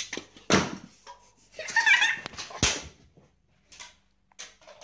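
A child's brief high-pitched squealing vocal sound, with a sharp thump a moment later and a few faint knocks from handling.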